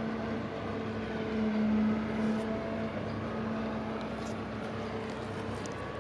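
Diesel engine of an inland motor tanker barge running steadily as it passes, an even low hum with a slight swell about two seconds in.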